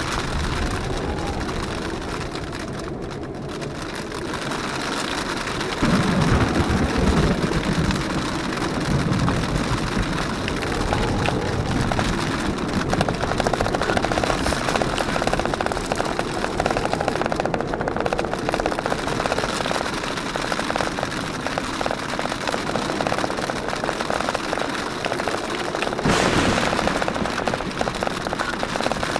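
Jeep Wrangler JKU's V6 engine running as it crawls over a rocky dirt trail. Rain on the body and tyres on gravel add a steady noise, with rapid ticking in the second half. A louder low rumble comes about six seconds in, and a loud surge of noise comes near the end.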